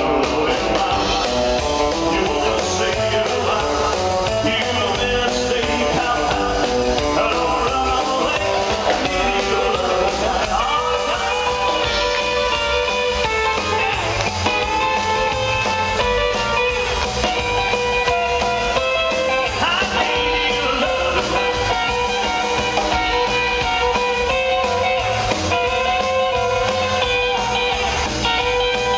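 Live rock and roll band playing loud: a man singing over electric guitar, upright double bass and drums.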